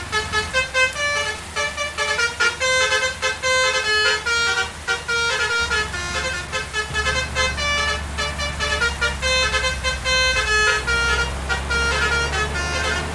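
A bus's basuri 'telolet' multi-trumpet horn playing a quick tune of short pitched notes, over the engine's steady low running.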